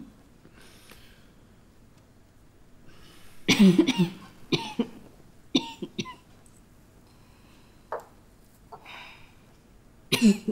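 A person coughing in several fits, the loudest about three and a half seconds in, with breathy intakes of breath between the coughs.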